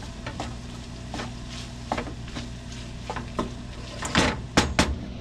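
Slotted wooden spatula stirring and scraping ground beef, diced porcini mushrooms and onion around a frying pan, with a light sizzle from the frying food. The strokes come about twice a second, and a few louder scrapes come near the end.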